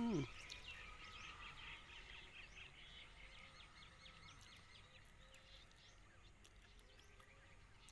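Faint bird chirping: a quick run of short, high chirps in the first few seconds that then grows fainter, over low outdoor background noise.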